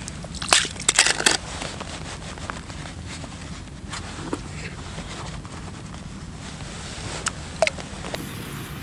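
Handling noise from a plastic bait container: a quick cluster of sharp clicks and scrapes about half a second in, then scattered small clicks, two of them near the end, over a steady low rumble.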